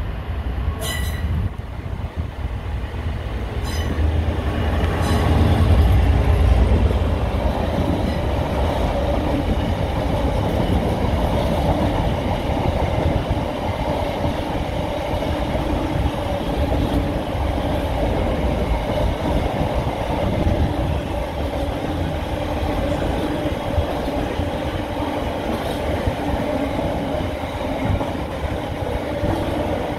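Diesel freight locomotive hauling a long container train past at close range, loudest about six seconds in as the locomotive goes by. After that comes the steady rumble of the container wagons rolling through, with a ringing wheel-on-rail tone over it and a few sharp clicks early on.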